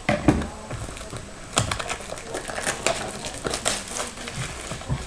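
Clear plastic shrink wrap being torn and peeled off a hockey card box, crinkling in a run of sharp crackles.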